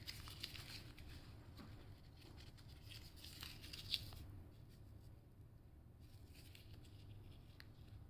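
Faint rustling and crinkling of a leaf held in the fingers as a kitten paws and bites at it, with one sharper crackle about four seconds in.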